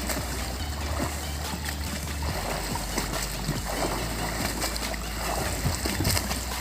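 Water splashing in a river as someone swims, with strong wind rumbling on the microphone.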